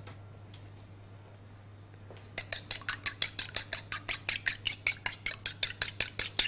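Two eggs being beaten by hand with a metal utensil in a small ceramic bowl: the utensil clicks quickly and evenly against the bowl at about five strokes a second, starting about two seconds in.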